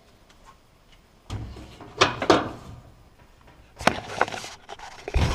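A few knocks and clunks of a door being handled and moved, with a louder clunk about two seconds in and another near the end.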